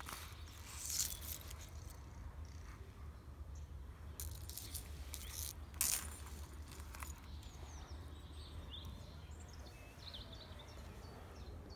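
Black leather trifold wallet with a steel chain being handled, folded shut and set down: leather rustling, with a sharp click about six seconds in as it is laid down. Faint bird chirps follow over a steady low hum.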